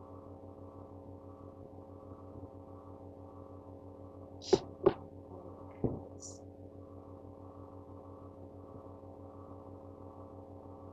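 A steady electrical hum made of a ladder of even tones, pulsing slightly, with three sharp clicks or taps near the middle.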